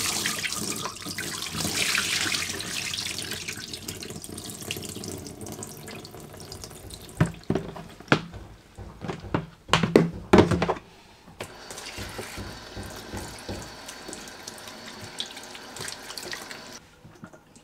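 Water running, as from a tap, loudest at first and then quieter, with several sharp knocks and clatters in the middle; the running stops near the end.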